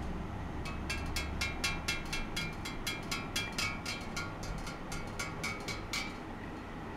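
A quick irregular run of light metallic ticks, about four a second, each with a short ring, from the stainless-steel cup the probes are set in. A low hum underneath stops about two seconds in.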